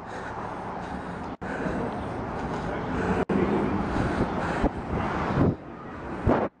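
Street traffic noise, a motor vehicle going by with its sound swelling over several seconds; it cuts out briefly twice.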